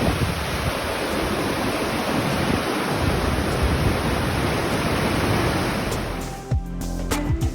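Rushing mountain stream water, a steady full hiss. About six seconds in it cuts off and plucked-string background music begins.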